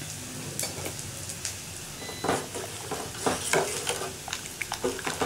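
Rasam boiling in a steel pot, a steady bubbling hiss, while a ladle stirs in the freshly added mashed toor dal. From about two seconds in, the ladle clicks and knocks against the pot.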